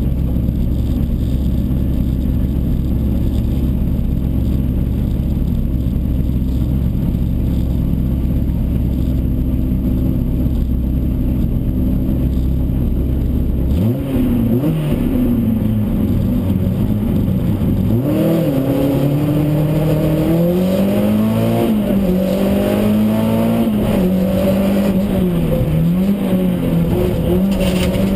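Rally car engine heard from inside the cabin, idling steadily, then revved up about halfway through as the car pulls away. Its pitch rises and falls repeatedly as the car accelerates along the road.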